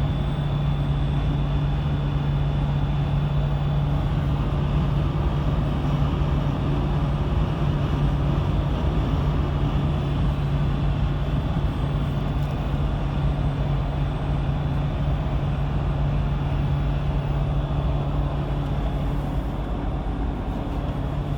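A steady, unchanging low mechanical hum with a constant drone underneath.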